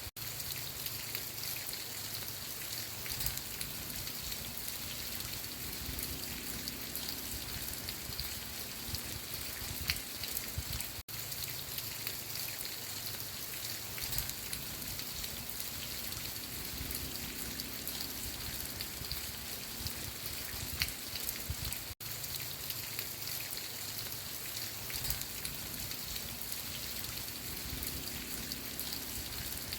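Steady rain falling on a surface, with individual drops ticking through it. It cuts out for a split second twice, about 11 and 22 seconds in.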